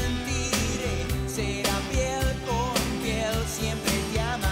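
Rock ballad played live by a band, with drum-kit strokes, bass and electric guitar under a male singer's voice. The voice holds wavering notes in the middle and again near the end.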